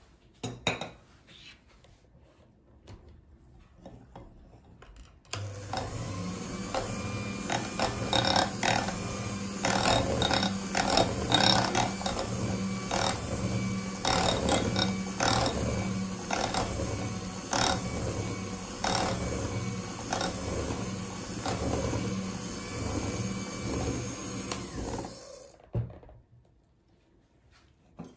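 Electric hand mixer beating cake batter in a glass bowl as flour is worked in gradually: the motor starts after about five quiet seconds, runs steadily with frequent clicks and knocks, and cuts off a few seconds before the end.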